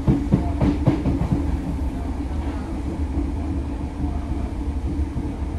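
British Rail Class 313 electric multiple unit running, heard from inside the passenger saloon: a steady low rumble with a quick run of clacks in the first second and a half as the wheels pass over track joints.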